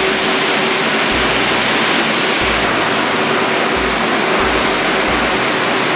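The Atom self-propelled sprayer's rear air-blast fan blowing disinfectant mist, a loud, steady rushing hiss.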